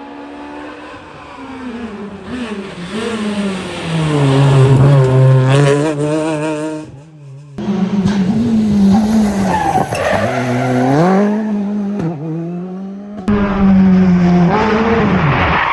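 Rally car engines at full throttle, pitch climbing through the revs and dropping back at each gear change. The sound cuts sharply twice, about seven and thirteen seconds in, as one car passing gives way to the next.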